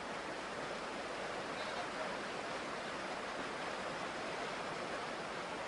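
Steady rushing of river rapids, an even wash of white water with no breaks.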